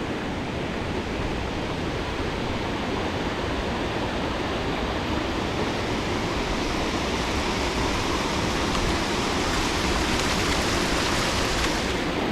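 Steady rush of a waterfall or stream, growing louder and brighter about halfway through, with the highest hiss dropping away just before the end.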